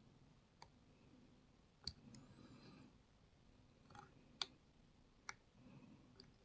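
Faint, irregular metallic clicks from small lock tools working the pins of a Lockwood MT5 lock, about six in all, the loudest a little over four seconds in, with a light scrape of metal on metal about two seconds in.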